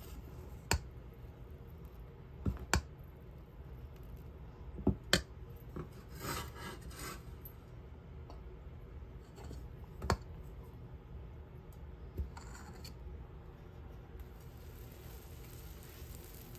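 Metal utensil stirring thick dosa batter in a stainless steel bowl: scraping along the bowl with a few sharp clinks of metal on metal.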